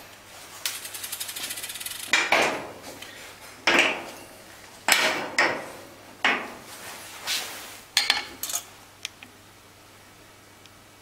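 Small steel injector parts and a dial gauge being handled on a steel workbench and stainless steel parts tray: a quick rattle of light clicks, then a string of sharp metallic knocks and clinks with short ringing, stopping about nine seconds in.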